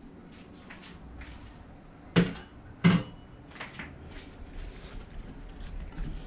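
Two sharp knocks less than a second apart, about two seconds in, then soft rustling and light taps as fresh okra pods are moved about on a paper towel in a glass baking dish.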